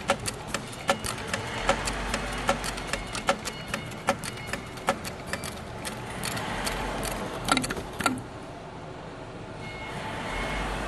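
Industrial heavy-duty sewing machine stitching a seam, its needle clicking in a steady rhythm of about two to three strokes a second. The stitching stops about eight seconds in, leaving a low hum.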